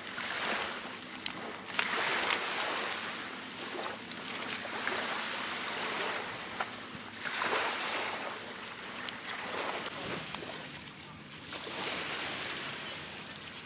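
Small waves washing over a pebble shore, surging and drawing back every few seconds. A few sharp clicks in the first seconds as a plastic zip bag of grapes is handled.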